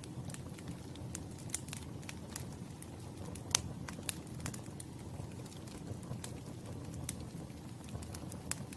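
Campfire burning, with a steady low rumble of flames and irregular sharp crackles and pops from the wood, one louder pop about three and a half seconds in.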